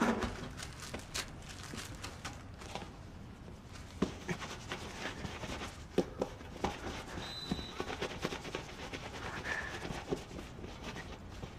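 Quiet handling of a sneaker: soft rustling and scattered small clicks and knocks as the shoe is wiped by hand, with a few faint short high chirps.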